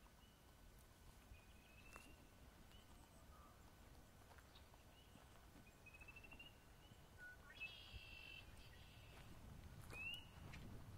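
Faint calls of small wild birds: short upslurred chirps every second or two, with a harsher, buzzier call about eight seconds in. Low footsteps on a dirt trail come in near the end.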